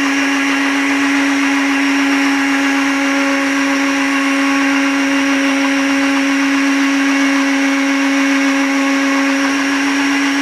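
Arno countertop blender running steadily at one speed, blending whole milk powder, sugar and boiling water into homemade condensed milk: a loud, even motor hum at one pitch over a whirring haze.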